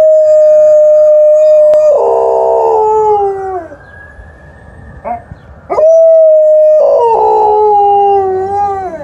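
Alaskan Malamute howling twice in reply to a passing ambulance siren. Each howl starts as one long steady note, then breaks into a wavering tone that falls away; the second begins about six seconds in.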